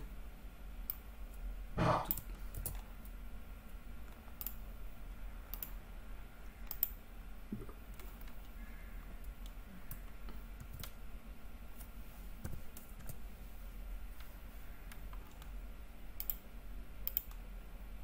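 Sparse computer mouse clicks and keyboard keystrokes, spread irregularly, over a steady low hum. One brief louder knock comes about two seconds in.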